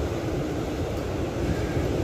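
Wind buffeting the microphone in an uneven low rumble, over the steady wash of surf breaking on a reef.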